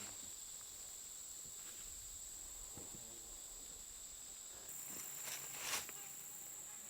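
Insects trilling steadily in one high, thin note, a little louder about two-thirds of the way through, with a couple of faint knocks around the same time.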